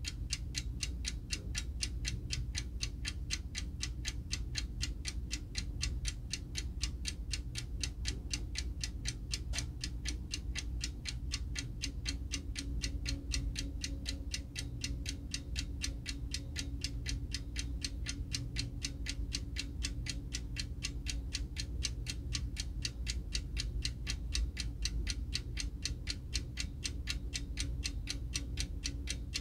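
Spring-wound, eight-day-wind Tokyo Clock alarm clock from the late 1950s to early 1960s, ticking evenly and quickly at about five ticks a second over a low, steady hum.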